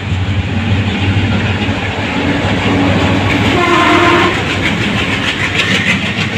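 Mysore Express passenger train running through the station at speed: a loud, steady rumble of the coaches with wheels clattering over the rail joints near the end. A short tone sounds about halfway through.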